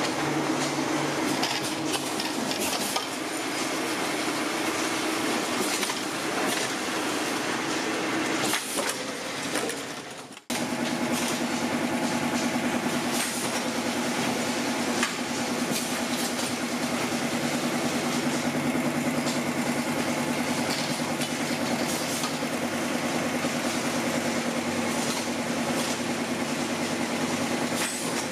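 Industrial paper tube rolling machine running steadily, a continuous mechanical clatter over a low hum. About ten seconds in the sound cuts briefly, then another machine's steady running hum carries on.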